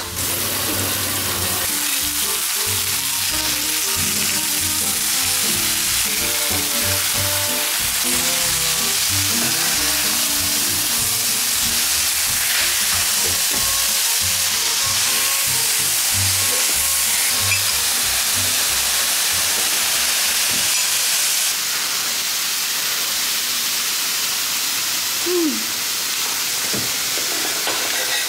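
Thin beef slices frying on a flat steel teppanyaki griddle, a steady dense sizzle that drops a little about three quarters of the way through. Background music plays underneath.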